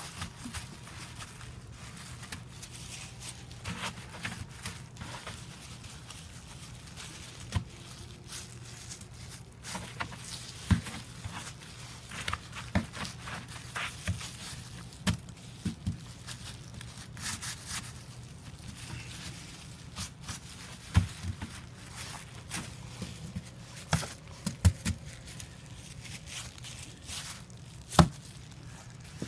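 Snow being packed and shaped by hand: irregular crunches and scrapes as snowballs are pressed and stacked together.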